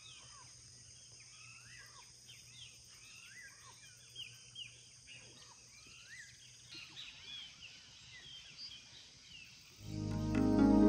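Faint evening chorus of many wild birds, short chirps and calls overlapping, over a steady high hiss. Loud music comes in near the end.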